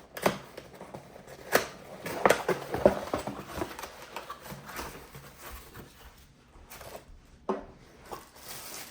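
Lamp box being opened and its packaging handled by hand: a string of clicks, rustles and light knocks, busiest in the first three seconds, with a single knock near the end.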